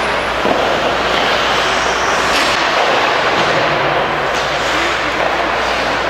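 Steady noisy rink sound of ice hockey play, skates scraping the ice, with a few faint knocks.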